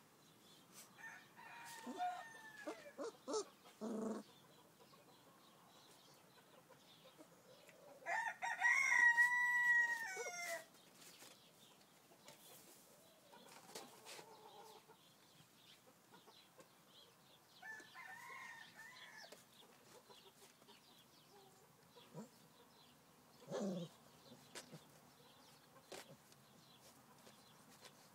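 A long animal call, about two and a half seconds, held on a steady pitch and then falling at its end; it is the loudest sound here. A few shorter, fainter calls come before and after it.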